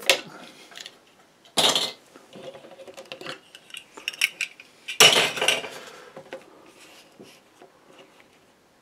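Clatter and knocks of small hard objects being handled and set down, with a louder burst about a second and a half in and another about five seconds in, and light ticks between.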